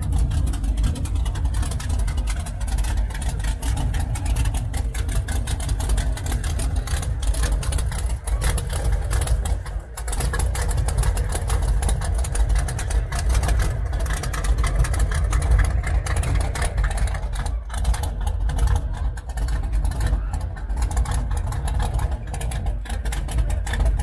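Hot rod's V8 engine idling through open headers and side-pipe exhaust, a steady pulsing rumble, with a brief drop in level about ten seconds in.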